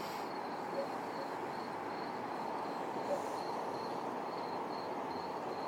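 Steady outdoor background noise with a small insect chirping faintly and evenly, about two to three chirps a second, and two brief low notes about a second and about three seconds in.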